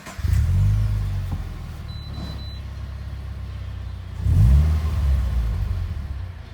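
Subaru BRZ's flat-four engine running: it comes in loud just after the start, settles to a steady idle, and is blipped once about four seconds in before dropping back to idle.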